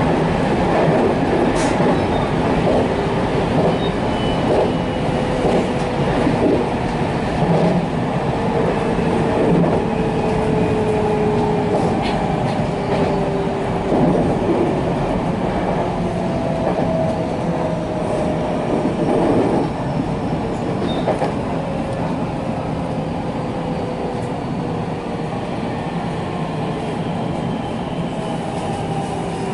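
Electric commuter train running on the rails, heard from inside the front car, with scattered clicks from the wheels over joints and points. A motor whine slowly falls in pitch as the train slows into a station.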